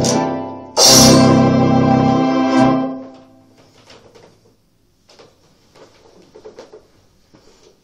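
Yamaha Electone HS-6 electronic organ playing theatre-organ voices: a brief dip, then a loud final chord held for about two seconds and released about three seconds in. After it, only a few faint knocks.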